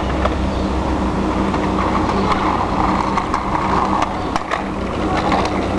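Small wheels of a child's kick scooter rolling and rattling over a concrete footpath, with scattered clicks, over a steady low hum.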